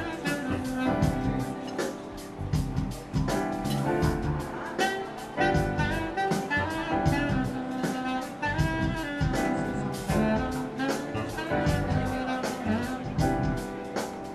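Live jazz band: a saxophone plays the melody over keyboard and electric bass, with a steady beat.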